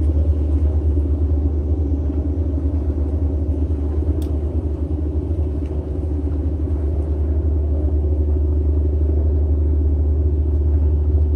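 A steady, loud low rumble, with a faint click about four seconds in.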